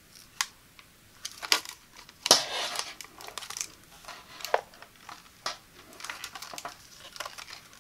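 A plastic steam iron handled and turned over in the hands: sharp clicks and taps from its plastic body, and the white protective sheet on its soleplate crinkling, loudest in one longer crinkle about two seconds in.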